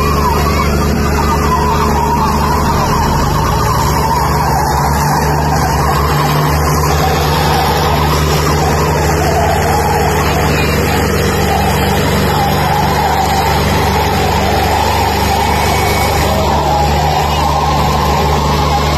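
Two diesel tractors, one a Farmtrac 60, run at full throttle pulling against each other in a tug of war, their engines straining under heavy load in a steady, unbroken drone.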